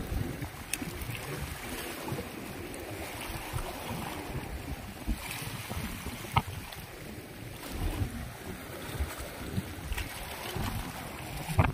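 Wind buffeting the microphone over open sea, with waves lapping. A few sharp clicks stand out, one about six seconds in and one near the end.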